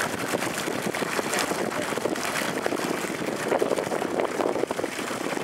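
Boat under way on open sea: a steady rush of water along the hull mixed with wind on the microphone.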